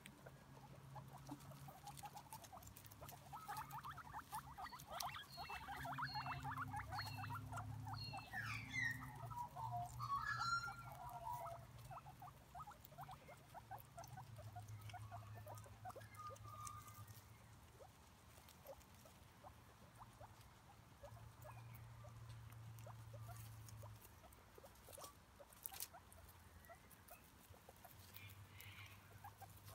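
Guinea pigs chewing and tearing grass: rapid, faint crisp crunching and nibbling, with rustling in dry leaves and mulch, densest over the first dozen seconds. A few short high chirps come between about five and eleven seconds in, over a low steady hum.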